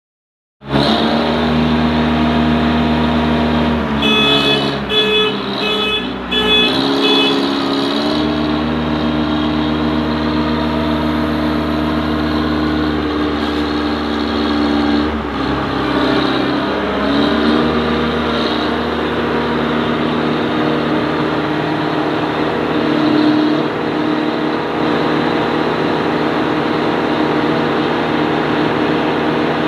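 Diesel engine of a Venus 3.0 Ultra self-loading concrete mixer running steadily, its pitch shifting as engine speed changes about four, seven and fifteen seconds in. A series of short high beeps sounds between about four and seven seconds in.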